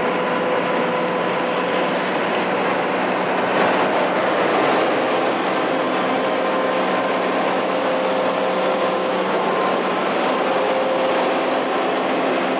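Steady cab noise inside a bus travelling at highway speed: the engine running evenly under road and wind noise, with a constant hum.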